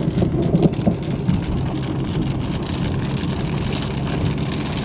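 Car cabin sound while driving: a steady engine and road hum, with raindrops striking the car as many fine ticks over it.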